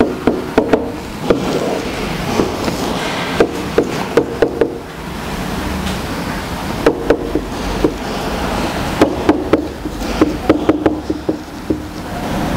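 Felt-tip marker writing on a whiteboard easel: irregular clusters of short hollow taps and knocks from the board as letters and lines are drawn.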